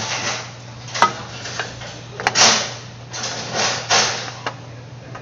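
Hands fitting a new spin-on oil filter onto the engine's filter mount: a couple of sharp clicks and several short rubbing swishes as the filter is handled and screwed on, over a steady low hum.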